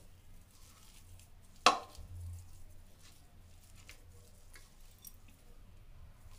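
Boiled potatoes being mashed by hand in a plastic bowl, faint, with a few light ticks. One sharp knock comes about a second and a half in.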